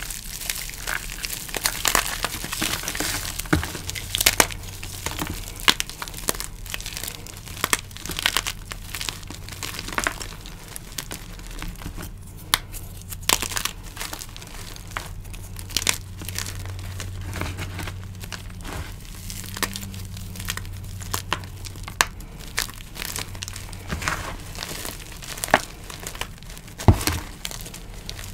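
Hands crushing and crumbling a glitter-coated block of green-dyed gym chalk: a steady stream of crunches and crackles, with louder snaps now and then as pieces break apart.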